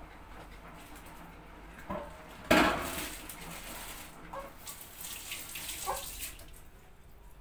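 Water running from a kitchen tap, turned on suddenly about two and a half seconds in and fading out a few seconds later, with a few light clinks of dishes.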